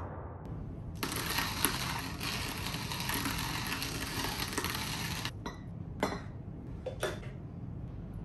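Hand-cranked coffee grinder grinding whole coffee beans: a dense crunching rattle for about four seconds, then a few separate light clinks.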